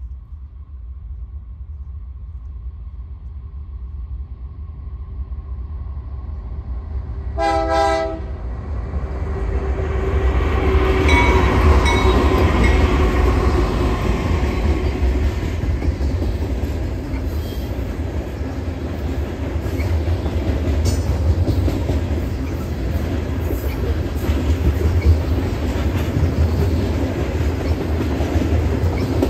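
Diesel-hauled freight train approaching and crossing a steel girder bridge. The rumble builds, a short locomotive horn blast sounds about seven seconds in, and the locomotives pass loudest around eleven to twelve seconds. Then covered grain hopper cars roll over the bridge with a steady rumble and clickety-clack.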